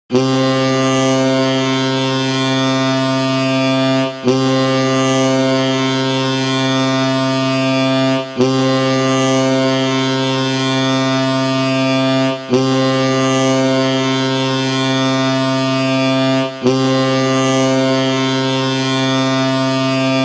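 Ice hockey arena goal horn: a low, ship-style air horn sounding five long blasts of about four seconds each, with short breaks between them, signalling a goal.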